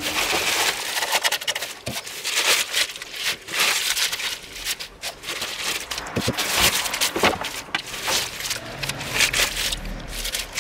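Wood-wool packing straw rustling and crackling as small paper-wrapped packages are pulled out of it one after another, in irregular bursts.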